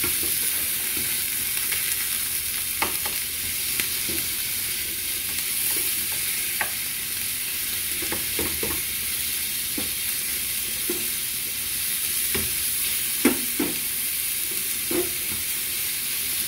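Ground beef sizzling as it fries in a little oil in a skillet, with scattered scrapes and knocks of a spoon stirring and breaking up the meat against the pan. The sharpest knock comes a few seconds before the end.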